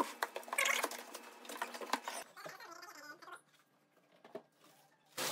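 Crinkling and rustling of plastic wrap and cardboard packaging as a box is unwrapped and its flaps opened, busiest in the first two seconds, then dying away to near quiet about two-thirds of the way in.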